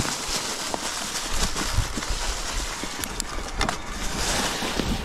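Wind rushing over the microphone of a camera on a moving mountain bike, with low buffeting that sets in about a second in and a few sharp ticks near the middle.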